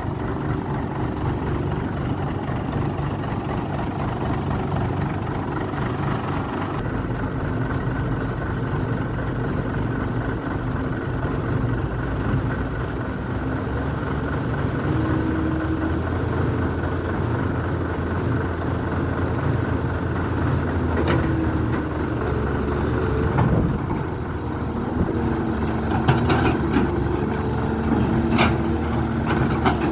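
Excavator's diesel engine running steadily while digging, its pitch shifting up and down as the load changes, with a few sharp knocks in the second half.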